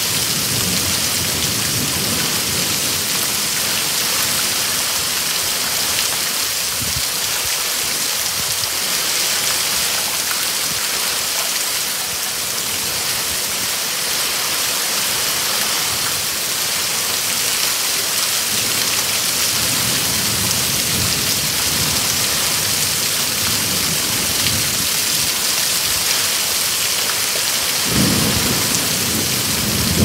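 Thunderstorm: heavy rain falling steadily on pavement, with low rolls of thunder. A louder thunder rumble sets in near the end.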